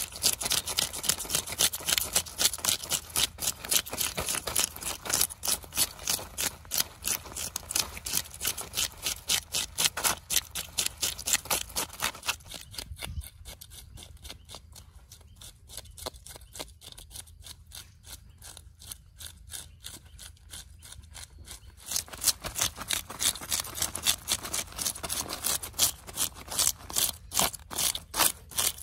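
Fish being scaled: a blade scraped against the scales in quick, repeated strokes, a few a second, flicking the scales off. The strokes go softer for a stretch in the middle, then loud again.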